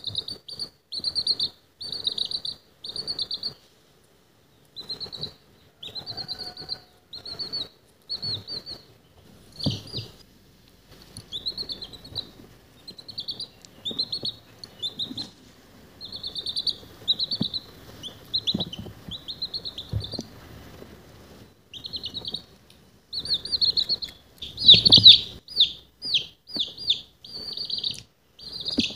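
Baby chick peeping: a run of short, high, downward-sliding peeps, about two a second, with a few brief pauses and a louder flurry near the end.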